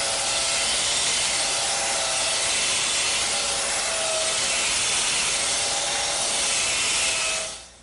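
Belt sander running across a solid cherry tabletop: a steady, loud hiss of the abrasive belt on wood over a faint motor hum. It stops shortly before the end.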